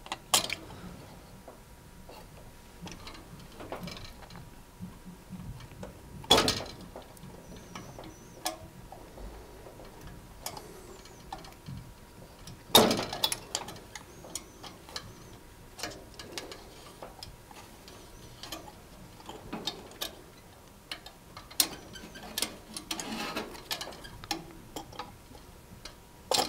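Flat-headed screwdriver and push-on spade connectors clicking and scraping against the terminal block of a ceramic hob's radiant hotplate element as the connectors are prised off. Irregular small clicks, with louder clicks about six and thirteen seconds in.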